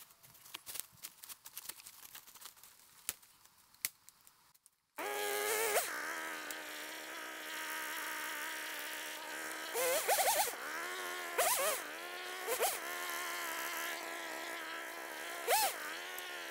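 Crackling and snapping in dry leaf litter, then a flying insect buzzing close by: a steady drone that starts suddenly about five seconds in and swoops up in pitch several times.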